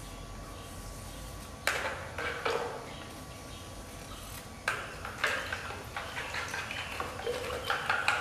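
Light knocks and clinks of hard objects being handled: a few separate ones at first, then a quick run of small taps and clicks in the second half.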